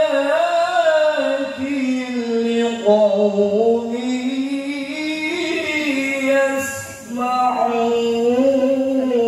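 A man chanting solo and unaccompanied into a microphone, in long ornamented phrases that bend up and down in pitch. He breaks off for a breath about seven seconds in, then carries on.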